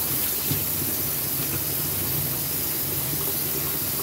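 Kitchen faucet running into a stainless steel sink while hands are scrubbed with a sponge: a steady hiss of water.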